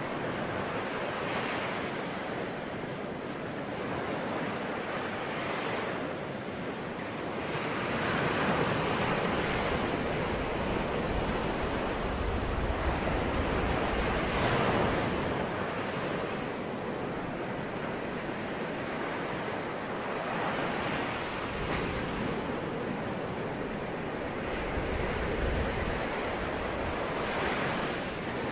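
Ocean waves breaking and washing on a shore, a steady surf that swells and eases every six or seven seconds.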